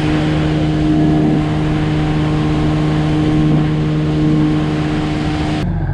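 A boat's outboard motor running steadily under way: a constant engine hum with a hiss of noise over it. It cuts off suddenly near the end.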